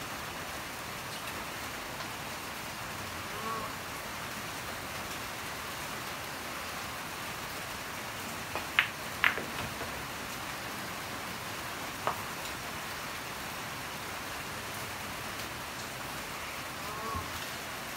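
Pool balls clicking as a shot is played: a quick cluster of sharp clicks near the middle, the two loudest about half a second apart, and one more click a few seconds later, over a steady hiss.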